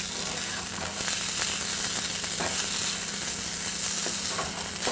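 Glutinous rice with chicken and Chinese sausage sizzling steadily as it pan-fries, with a few faint scrapes of the spatula stirring it through.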